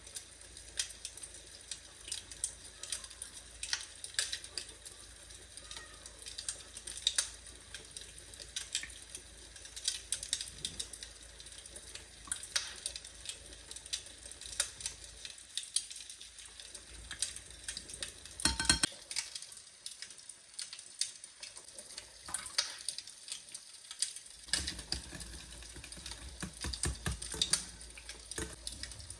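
Kitchen work sounds: irregular light clicks and clatter over a steady hiss, quieter for a stretch near the middle.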